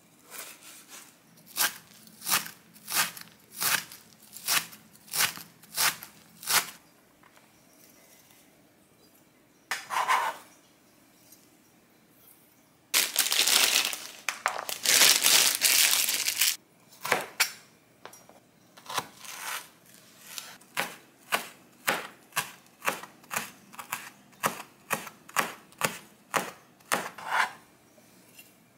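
Kitchen cutting: a long run of sharp strokes, about one or two a second, broken about halfway through by a few seconds of dense rustling noise.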